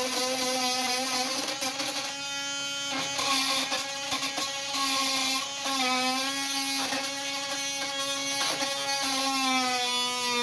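Oscillating multi-tool with a Milwaukee bi-metal blade cutting through screws and nails: a steady buzzing whine whose pitch sags briefly several times as the blade bites, with scattered clicks of metal on metal.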